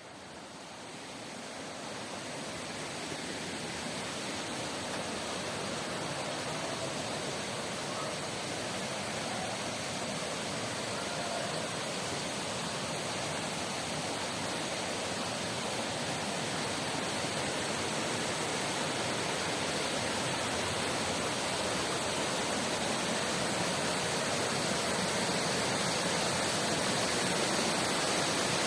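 Rushing water of a river and waterfall, a steady roar that grows gradually louder, rising quickly in the first few seconds.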